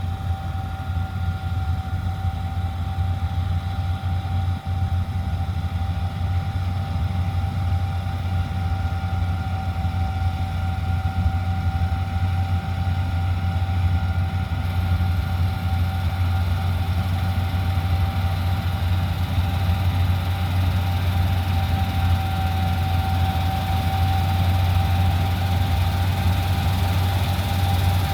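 Heavy engine running steadily: a loud, even low drone with a constant high whine over it.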